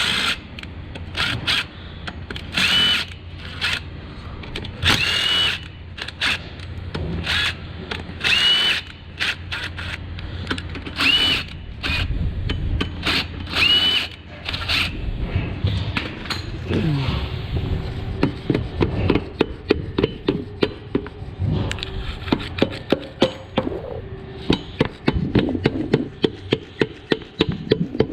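A cordless power tool whirs in short bursts with a high whine, spinning out the connecting rod cap bolts of a Honda D15 single-cam engine. About two-thirds of the way through it gives way to a steady run of sharp clicks, about three a second.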